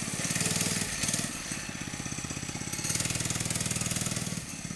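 Homemade go-kart's Harbor Freight 2.5 hp 79cc single-cylinder four-stroke engine running with its governor removed, louder and quieter in turns as the kart drives off.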